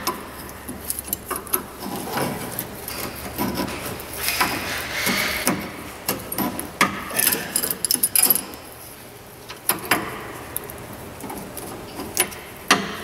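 Hand tool clinking and scraping on a steel tie rod adjuster sleeve as it is turned to set the front wheel's toe, in irregular clicks and short scrapes.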